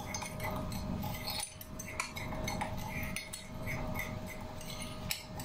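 Light, irregular clinks and taps of cutlery against ceramic dishes being handled, with a faint steady hum underneath.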